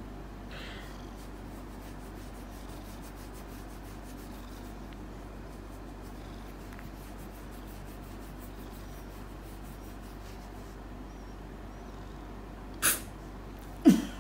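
Korat cat purring steadily while its chin is scratched. Two short, sharp sounds come near the end, the second the loudest.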